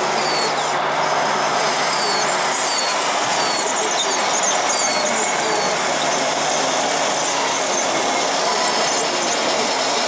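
Scale RC Liebherr 634 crawler loader driving over a grit-covered floor: a steady mechanical running noise from its metal tracks and drive, with faint short squeaks repeating about twice a second in the first half.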